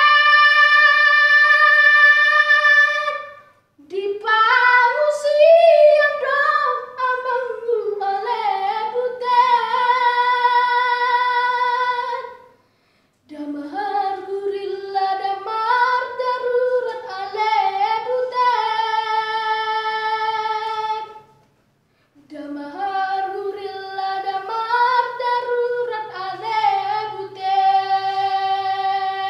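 A boy singing solo without accompaniment, in long phrases that each end on a held note, with brief silent breaths between them.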